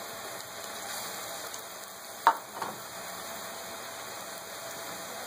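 Pakoras deep-frying in hot oil in an iron karahi: a steady sizzle. A sharp click comes a little past two seconds in, with a fainter one just after.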